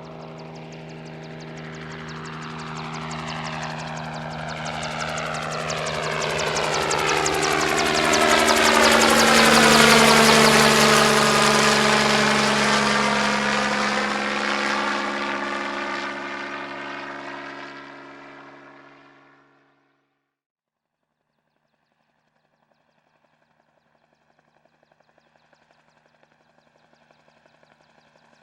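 Helicopter flying past: the rotor and engine sound builds steadily, is loudest about ten seconds in, then fades away and is gone by about twenty seconds. After a few seconds of silence a faint steady hum starts near the end.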